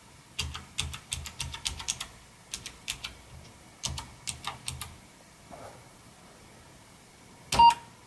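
Keys on an Apple IIc's Alps keyboard clicking as they are pressed in quick succession to test the switches after repair, a run of a dozen or more keystrokes in the first five seconds. Near the end a harder keystroke is followed by the computer's short beep, sounding as it reports a syntax error.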